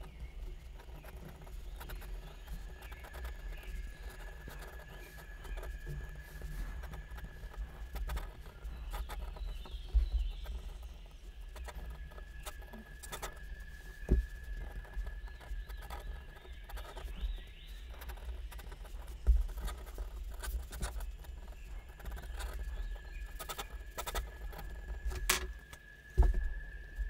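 Ink pen nib scratching and tapping on paper in quick sketch strokes, with low thumps from the desk and a few sharper knocks, the loudest near the end.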